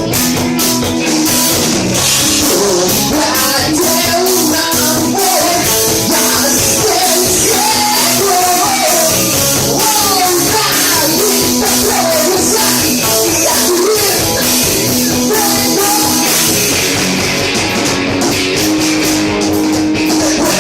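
Live rock band playing, with electric guitar, drum kit and singing.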